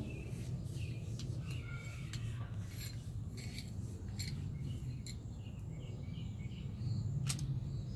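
Scattered light clicks and rattles of small plastic paint bottles and brushes handled in a plastic storage bin, one sharper click near the end. Birds chirp faintly over a low steady hum.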